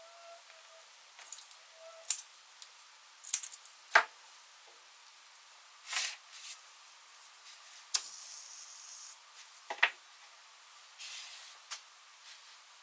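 Small objects being handled and set down on a wooden tabletop: scattered light clicks and knocks, the sharpest about four seconds in, with a few brief hisses.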